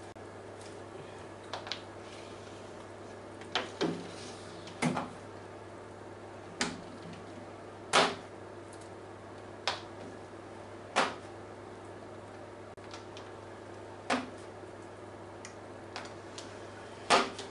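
Window glass being washed by hand with a cloth in soapy water: about a dozen short, irregular rubbing and bumping sounds against the pane and frame, over a steady low hum.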